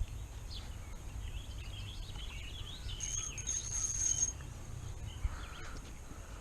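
Outdoor ambience of small birds chirping with short rising and falling calls, and a thin, steady, high-pitched trill for about a second near the middle, over a constant low rumble.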